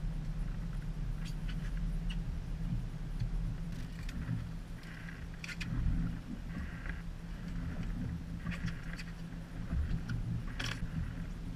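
Fishing boat's engine running steadily, a low hum, with a few sharp clicks and knocks on deck.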